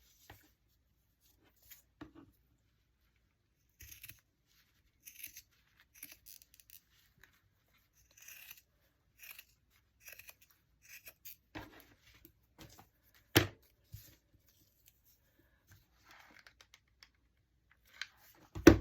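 Scissors cutting paper, with paper rustling in short spells, and a sharp tap on the table about 13 seconds in and another at the very end.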